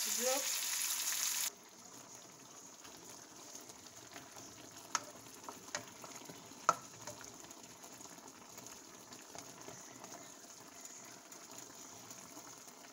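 Fish frying in a pan, a loud sizzle that cuts off abruptly after about a second and a half. A faint simmer of the fish in its sauce follows, with a few sharp clicks of a spoon against the pan.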